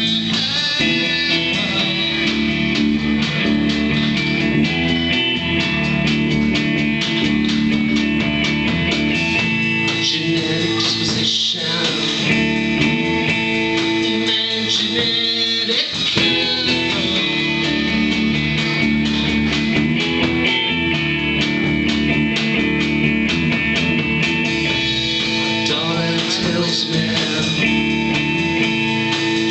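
Live rock band playing: electric guitars and a drum kit, with a singer.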